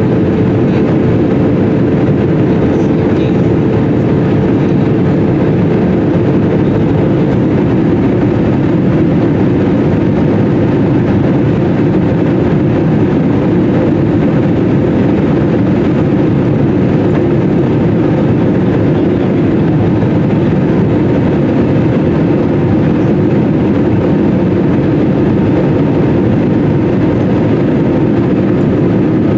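Steady cabin noise of an Airbus A320 on final approach, heard from a window seat over the wing: the engines and the airflow past the airframe. A faint steady hum within it fades out about seven seconds in.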